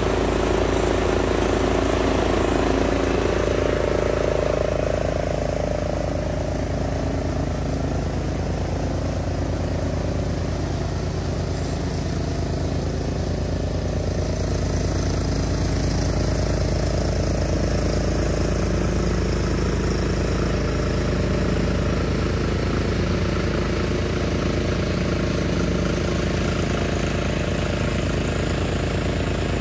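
Cub Cadet 760 ES 33-inch walk-behind mower's engine running steadily under load as it cuts grass.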